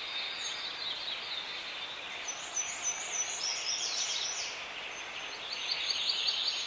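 Birds chirping over a soft steady hiss, with quick runs of short high chirps in the middle and again near the end.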